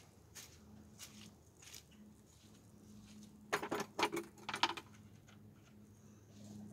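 Rubber feed buckets being handled, with a quick run of rattling clicks and knocks about three and a half seconds in that lasts about a second, amid faint scattered rustles and a faint steady low hum.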